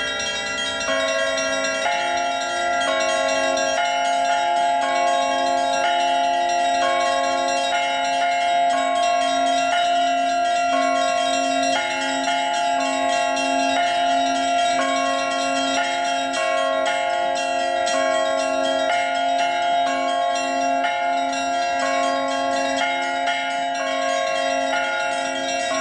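Russian Orthodox bell ringing (zvon) on a set of cast bronze church bells from the LITEX foundry. Small chiming bells ring in a fast, even rhythm over regularly repeating larger bells, without a break.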